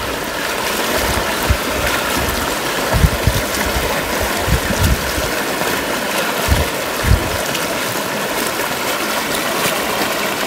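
Fast-flowing floodwater rushing across a village road, a steady rush of moving water. A few brief low thumps break through it.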